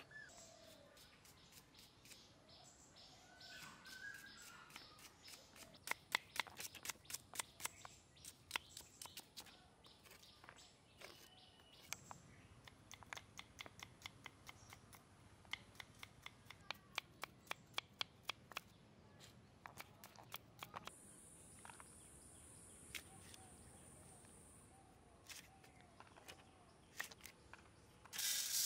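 Knife chopping on a wooden block: quick sharp knocks, several a second, in runs through the middle and sparser toward the end. Birds chirp now and then in the background.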